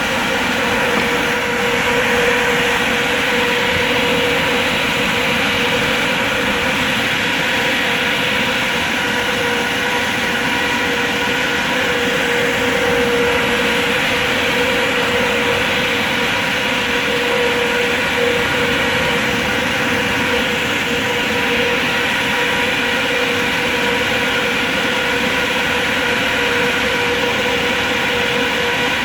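Electric fan running steadily: an even rush of air with a constant humming tone.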